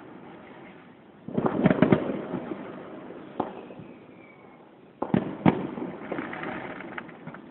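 Fireworks bursting across a valley, each bang trailing an echo: a quick volley of bangs about a second in, a single crack, then two more bangs near the middle followed by lighter crackling.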